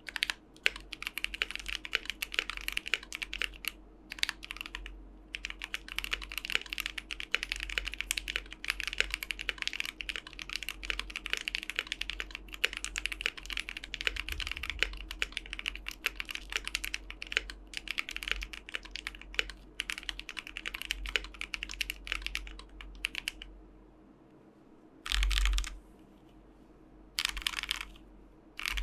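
Typing on a Keychron Q3 mechanical keyboard with Momoka Shark tactile switches: a steady run of key clacks. It pauses about 23 seconds in, then comes back as two short, dense flurries of keystrokes near the end.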